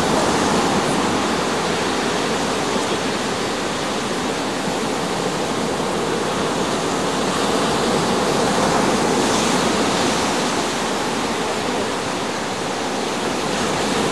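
Ocean surf breaking and washing up the beach: a steady rushing that swells and eases slowly.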